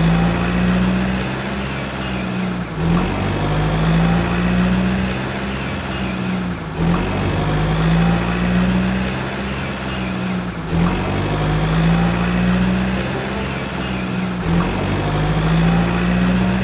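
A looped background soundtrack with a steady low drone, repeating about every four seconds.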